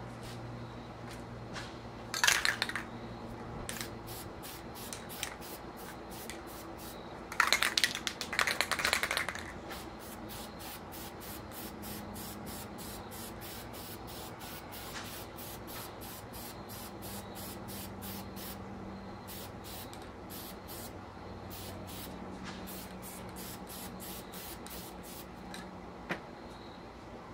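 Aerosol spray paint cans: a short hiss of spray, then a longer hiss of about two seconds, followed by a long run of quick, even clicks, the mixing ball rattling inside a can as it is shaken.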